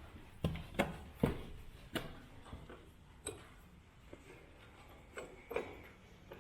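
Footsteps: a quick run of sharp steps during the first two seconds, then a few scattered ones.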